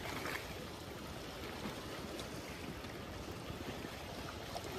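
Steady rush of flowing river water, with a few faint ticks.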